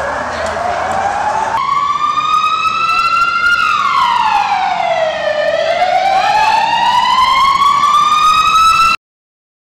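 Police vehicle siren wailing, slowly rising in pitch, falling, then rising again, over a noisy background for the first second or two. It cuts off suddenly near the end.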